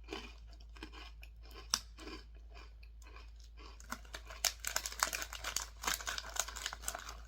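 Close-up chewing of crunchy rice crackers, a crisp crunch about twice a second. From about four seconds in it turns into a denser, brighter crackling.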